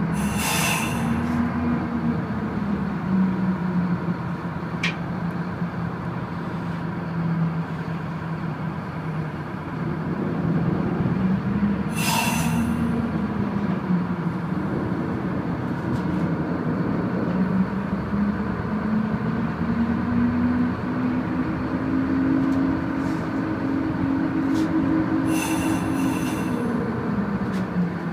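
A tugboat's diesel engine drones steadily, its pitch sagging about a third of the way in, then climbing and falling again near the end as the tug manoeuvres alongside its barge. Three short hisses stand out over it, near the start, in the middle and near the end.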